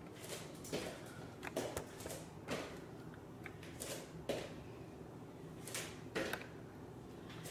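Bare feet landing on a yoga mat over a wood floor during jumping squats: a series of short, soft thuds, about one a second and unevenly spaced.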